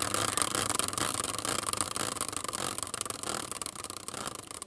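A prize wheel spinning on its stand, ticking rapidly. The ticks gradually grow quieter and further apart as the wheel slows down.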